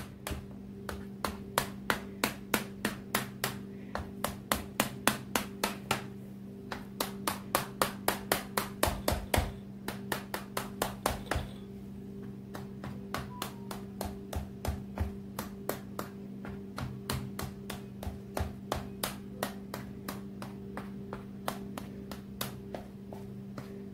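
A fork pricking rolled pizza dough on a metal baking tray: a long run of quick, sharp taps, about three a second, louder in the first half and softer later. A steady low hum runs underneath.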